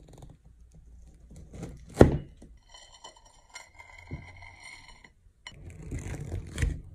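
A knife cutting through a chocolate-coated ice-cream cookie sandwich and knocking sharply on the plate about two seconds in. A steady high tone sounds through the middle, and a fork scrapes and clinks on the plate near the end.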